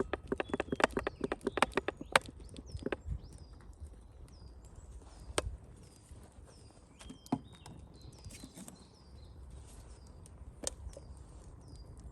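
A fast run of sharp chopping knocks for about two seconds, then a few single knocks spread through the rest, while a small bird repeats short, high, falling chirps.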